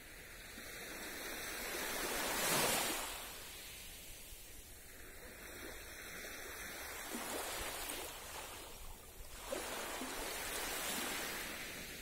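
Small waves of a calm sea washing up a sandy shore. The hiss of each wash swells and fades, loudest about two and a half seconds in.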